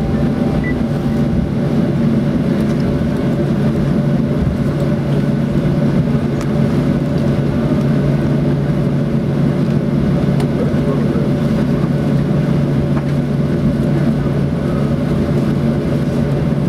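Cabin noise of a Boeing 737-800 on the ground after landing, heard from a window seat over the wing: the CFM56-7 engines running at low taxi power as a steady, even drone with a deep hum.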